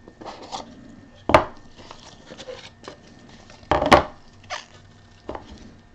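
Trading-card packaging and cards handled on a table: light clicks and scrapes with two sharper knocks, about a second and a half and four seconds in.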